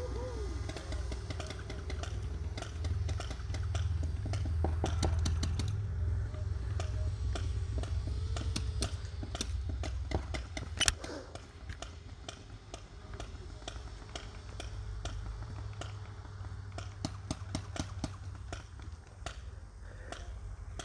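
Paintball markers firing, sharp pops coming in quick clusters, with faint distant shouts. A low rumble of wind on the microphone fades after the first few seconds.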